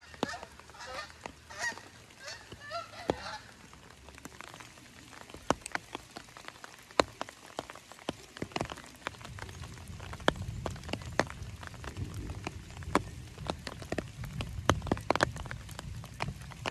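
A flock of geese honking as it flies over, a run of calls in the first three seconds or so. Then scattered raindrops dripping and ticking, with a low rumble coming in about halfway.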